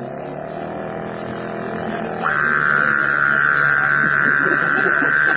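A boy imitating a diesel-style generator with his voice: a low hum that builds, then about two seconds in a loud, steady buzzing drone cuts in and holds, like the generator starting and running.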